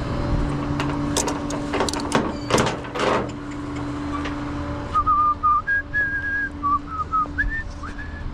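Clanks and knocks of tow straps and hooks being moved around on a rollback bed over a steady hum. From about halfway through, someone whistles a short tune of wavering notes.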